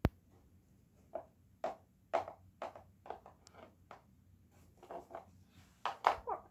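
Plastic toy animal figurines set down and tapped along a wooden floor as they are walked in: a sharp click at the start, then a string of light taps about two a second that grow louder near the end.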